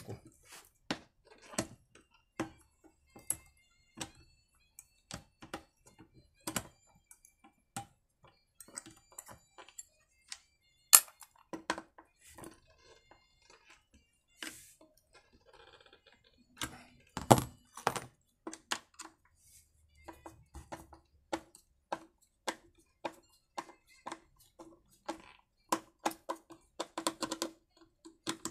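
Screwdriver and hand tools clicking and knocking against a chainsaw's plastic handle and the workbench while the handle screws are being undone, with the loudest knock about eleven seconds in. A run of quick, evenly spaced clicks comes near the end.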